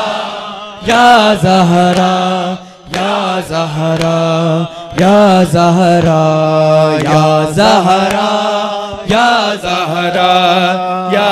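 Male voices chanting an Urdu devotional lament (noha) to Fatima into microphones. A lead voice sings long, wavering phrases with short breaks for breath over a steady low drone.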